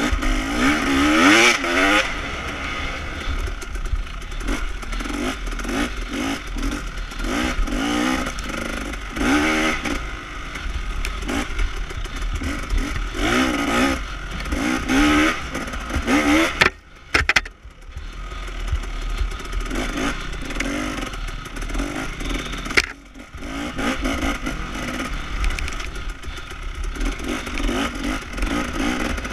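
Dirt bike engine heard from on board, revving up and down repeatedly as the rider works the throttle along a rutted trail. The engine note drops away briefly about halfway through, and there is a single sharp knock a few seconds later.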